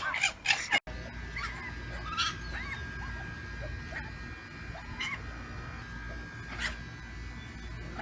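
Red fox screaming loudly with a high, wavering call, cut off abruptly under a second in. The fox then gives soft, short whines and yips over a low steady hum.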